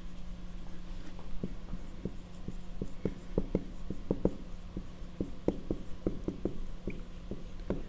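Dry-erase marker writing on a whiteboard: a quick, irregular run of short strokes as words are written, over a steady low hum.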